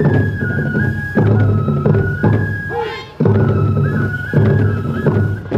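Japanese folk festival music for a tiger dance. A flute holds a high melody that steps between a few notes, over a large drum struck about once a second with a low boom after each stroke. A brief call rises and falls about three seconds in.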